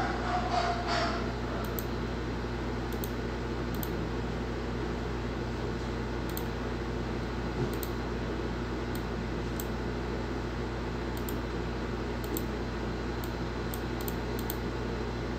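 Steady electrical or fan hum with faint, irregular computer clicks every second or so as text is typed and edited on a computer.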